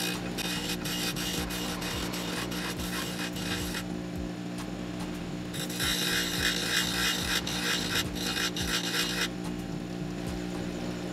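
Lotus 6-inch bench grinder humming steadily while a steel chisel is pressed against its 60-grit wheel: a gritty hiss in two passes of about four seconds each, the second louder. The grinding stops about nine seconds in and the motor keeps running.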